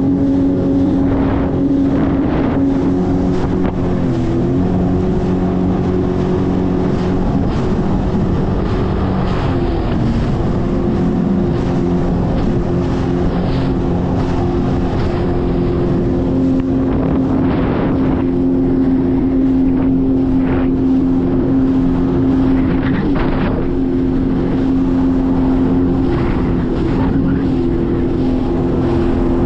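Jet ski engine running steadily at cruising speed, its pitch shifting briefly about ten seconds in, with wind buffeting the microphone.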